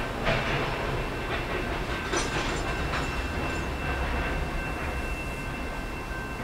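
Canadian National freight train's cars rolling across a steel railway bridge: a steady low rumble with scattered clanks and clicks, the loudest about two seconds in, over a faint steady high whine.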